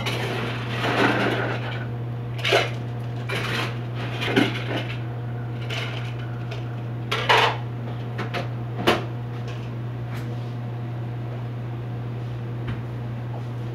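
Dishes and cutlery clattering and clinking in a cafe in short bursts, several knocks in the first nine seconds, over a steady low hum.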